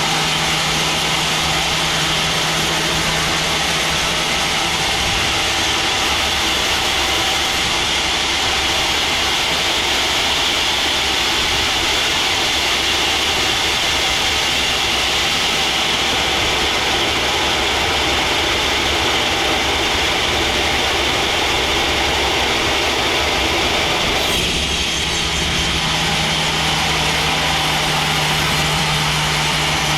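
Sawmill machinery running steadily and loudly, a continuous mechanical hum and hiss. Its sound shifts about 24 seconds in, when a low steady hum returns.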